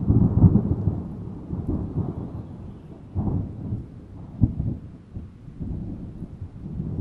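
Distant thunder rumbling low and long, swelling and fading several times, with a sharper peal about four and a half seconds in.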